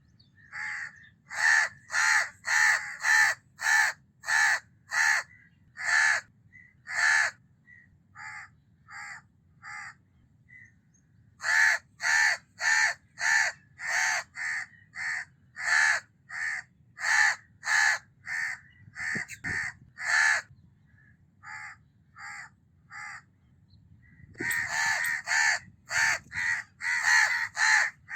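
House crows (Corvus splendens) cawing: many short caws repeated in runs, some loud and some fainter, with a denser, quicker string of overlapping calls near the end.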